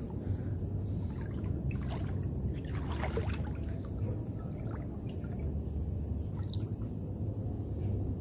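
Water sloshing and swishing around legs as people wade slowly through shallow water, with a steady low wash throughout.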